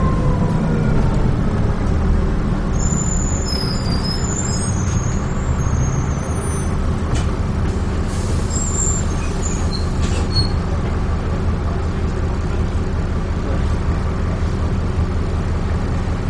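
Interior of a Dennis Trident 2 double-decker bus on the move: steady diesel engine and road noise, with brief high-pitched squeaks a few seconds in and again around the middle.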